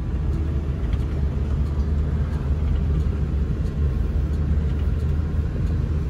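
Low, steady rumble of a vehicle driving on a gravel road, heard from inside the cab.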